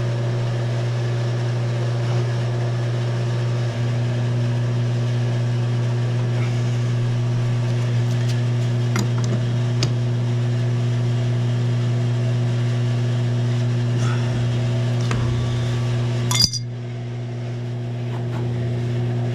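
Oil burner of the heating system running: a steady low hum, with a sharp click about sixteen seconds in.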